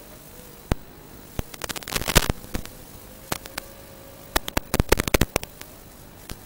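Static hiss from an analog FPV video receiver's audio channel, broken by sharp crackling clicks that come in clusters, with a faint steady hum underneath. The crackles are interference on the analog video link.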